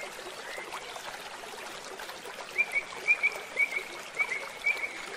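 Outdoor ambience with a steady hiss. From about halfway through, a small creature calls a run of short, high chirps in pairs, about two pairs a second.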